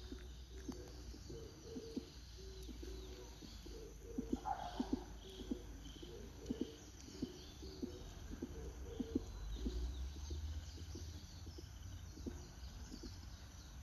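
A dove cooing in a long run of short, low notes, with a brief higher bird call about four seconds in and a steady low rumble of background noise.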